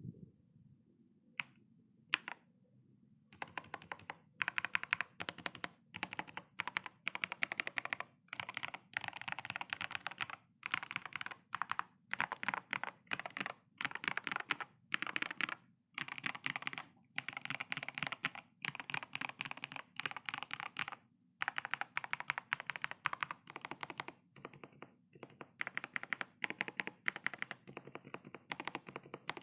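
Typing on a ZIFRIEND ZT104 gasket-mount mechanical keyboard: two single key presses, then a fast, steady run of keystrokes broken by brief pauses.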